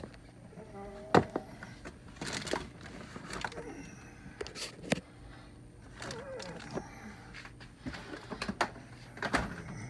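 Kitchenware being handled: scattered sharp knocks and clicks, the loudest about a second in and near five seconds in, with short rustling sounds between them.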